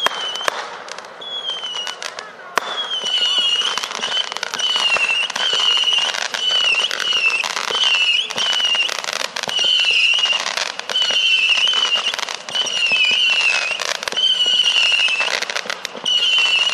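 500-gram Saturn missile cake firing a rapid, continuous volley of small missiles. Each missile whistles shrilly as it climbs, the wavering whistles coming about once a second, over a dense stream of pops and crackles.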